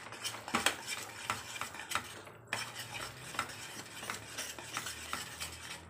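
A flat metal spatula stirring and scraping thick banana halwa around a metal pan, with quick irregular clinks of metal on metal. The halwa has thickened after long continuous stirring over the flame.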